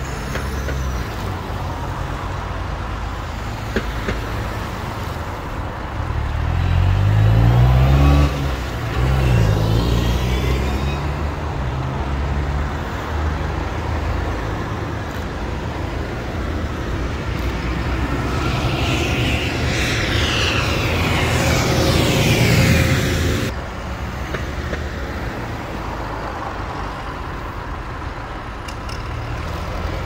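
Farm tractors and cars driving past one after another, diesel tractor engines running under a steady traffic rumble. Two louder passes stand out, one about seven seconds in with the engine note sliding, and one building around twenty seconds in that cuts off sharply a few seconds later.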